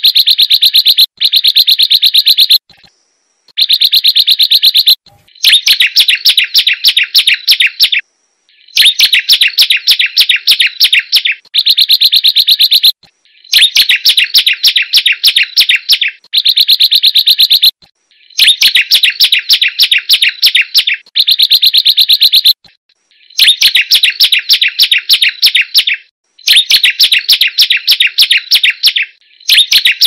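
Song of a prenjak gunung, a prinia: bouts of fast, shrill, rapidly repeated notes, each two to three seconds long with short pauses between. It is a lure recording (pancingan) played loud and on a loop to set a caged bird singing.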